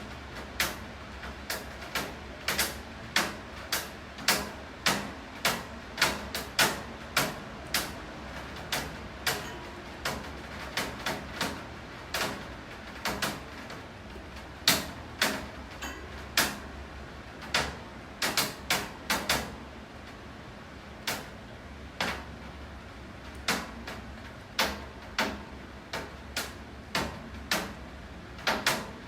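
Rain: large drops tapping irregularly on a hard surface, one or two sharp taps a second, over a steady hiss of falling rain.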